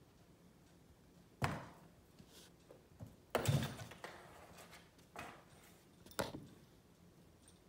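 Hollow thunks and knocks of a cardboard box as a cat bats and shoves at it, four separate knocks, the loudest a deeper thud about halfway through.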